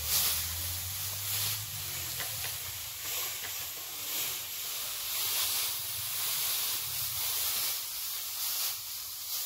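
Dry straw rustling and swishing as armfuls are shaken and flung, in repeated swells about every second or two.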